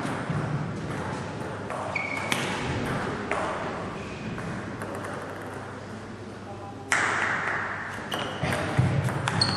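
Table tennis ball clicking and pinging as it bounces on the table and off the bats, a few scattered hits, over the murmur of spectators. The background noise grows louder about seven seconds in.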